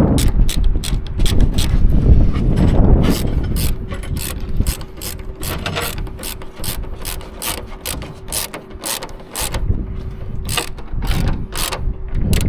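Ratchet wrench clicking in short irregular runs, a few clicks a second, as bolts are worked during reassembly. A low rumble in the first few seconds, then a faint steady hum underneath.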